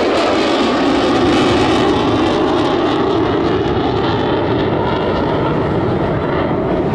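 F-35C Lightning II jet fighter's Pratt & Whitney F135 turbofan: a loud, steady jet roar as the fighter flies by and pulls away. Its highest frequencies fade from about three seconds in as it recedes.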